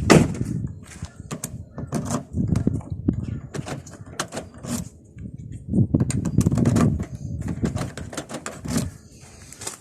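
Car door hardware being tried: a rapid series of clicks and knocks from door locks, handles and latches, with heavier handling thumps twice.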